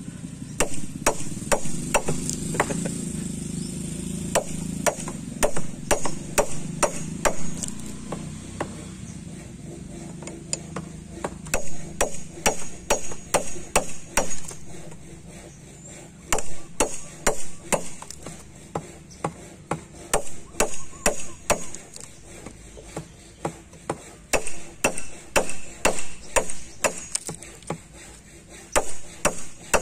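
A wide wood chisel being struck repeatedly to chop a notch into a hardwood beam. It makes sharp knocks in runs of about two to three a second, with short pauses between runs.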